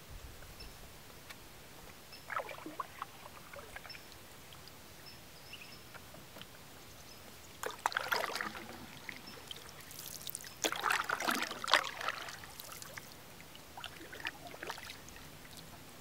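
Wooden canoe paddle dipping and pulling through lake water, each stroke a splash and swirl followed by dripping. There are four strokes a few seconds apart, and the third is the loudest.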